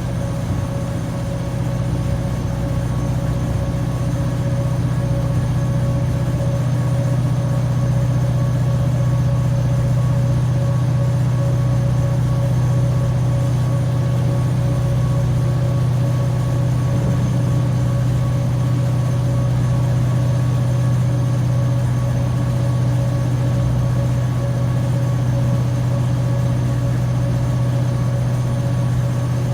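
Class 755/3 bi-mode train's diesel power-pack engines working hard under power, with their cooling fans running, in a steady low drone with a few steady higher tones. It builds slightly over the first several seconds, then holds level.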